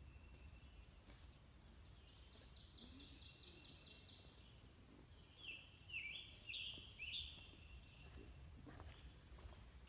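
Songbirds singing in woodland: a quick run of high, thin notes, then, after a short pause, four louder downward-slurred whistled notes a little over half a second apart.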